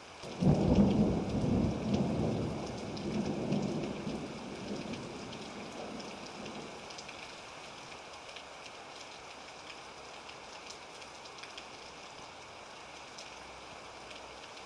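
Thunderstorm: a clap of thunder breaks just after the start and rolls away over about five seconds, over steady rain.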